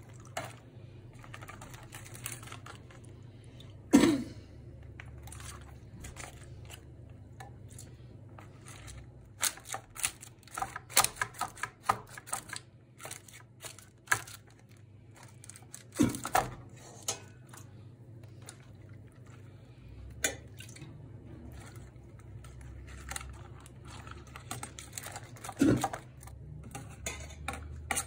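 Dry güllaç starch-wafer sheets crinkling and crackling as they are laid and pressed into a metal tray, with milk ladled over them. Three louder knocks of a utensil against the metal tray are spread through.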